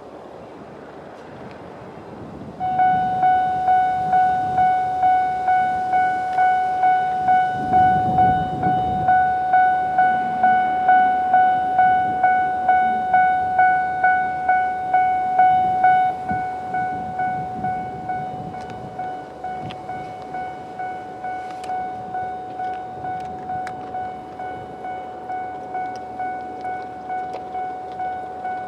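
Japanese level crossing's electronic warning bell starting about three seconds in, a single repeating ding about twice a second. The crossing's second, lower-pitched bell unit is out, so only one tone sounds instead of the usual alternating pair. The bell drops in level about two-thirds of the way through.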